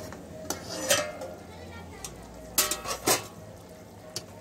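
Metal clanks of a lid and spatula against a metal kadai as the lid is taken off: about four sharp knocks, each with a brief metallic ring.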